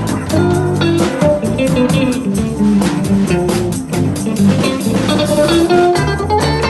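Live instrumental band music: a drum kit keeping a busy beat under a run of quick melodic notes and a bass line.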